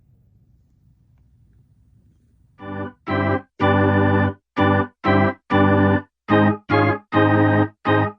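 Keyboard music with an organ-like sound: short, separate chords about two a second, starting about two and a half seconds in after a faint low hum.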